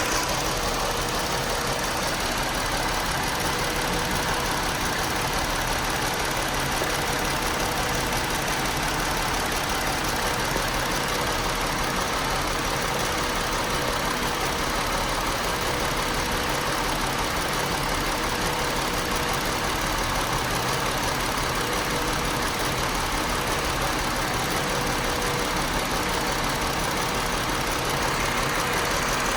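2018 Chrysler Pacifica's 3.6-litre V6 running at idle, steady throughout. It is a rough idle from a multiple-cylinder misfire (P0300).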